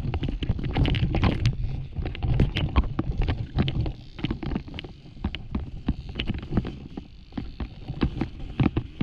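Dirt bike engine running hard off-road, with a low rumble of wind and machine and frequent sharp knocks and clatters from riding over loose, rocky ground. It eases off for a few seconds around the middle, then picks up again.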